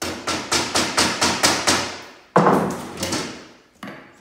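Hammer tapping glazier's points into a wooden window sash, driven in against a putty knife laid on the glass. A quick run of light taps, about five a second, then one louder knock and a last small tap near the end.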